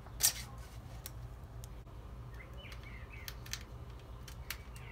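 Small clicks and ticks of needle-nose pliers and a steel shift cable being handled at a bicycle frame, with one sharper click about a quarter second in. Birds chirp faintly in the background.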